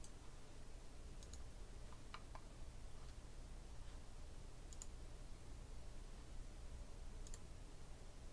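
A handful of faint, short clicks spaced a second or more apart, some in quick pairs, over a low steady hum.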